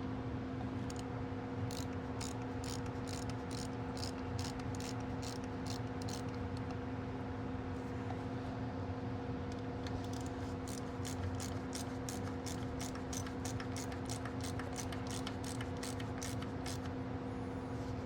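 Ratchet wrench clicking in two runs of evenly spaced clicks, about three a second, while bolts on a Farmall Cub steering gear housing are tightened, over a steady hum.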